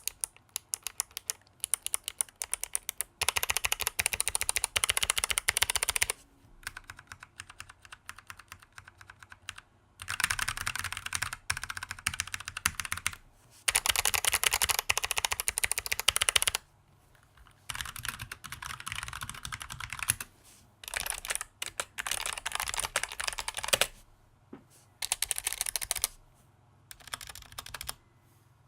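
Fast typing on two GMMK mechanical keyboards in turn, one fitted with clicky Kailh BOX Navy switches and the other with tactile Kailh BOX Heavy Burnt Orange switches. It comes in bursts of a few seconds with short pauses between, some bursts louder and denser than others.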